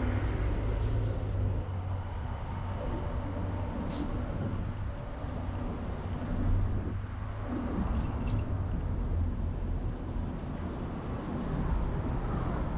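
Downtown street traffic: a steady low rumble of vehicle engines, with a couple of brief sharp clicks about four and eight seconds in.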